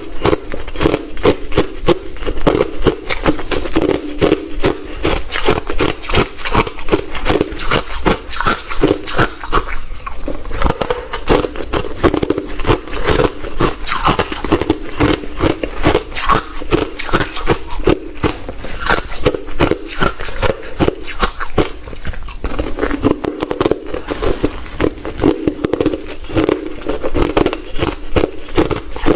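Close-up chewing of hard refrozen crushed ice: a rapid, continuous stream of loud, sharp crunches as the ice breaks between the teeth.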